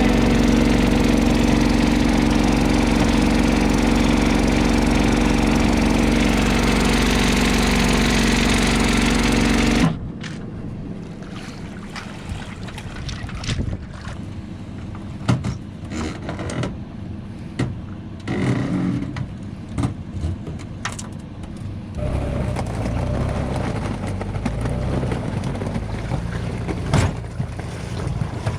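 A small engine running steadily, cutting off abruptly about ten seconds in; after that, quieter outdoor sound with scattered clicks and knocks.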